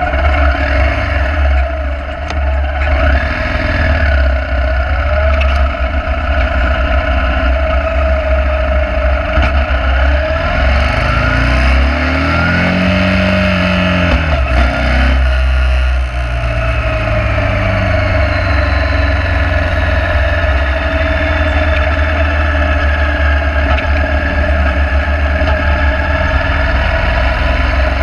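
Motorcycle engine running steadily under way. About halfway through its note climbs and falls back once, with a short dip in loudness just after.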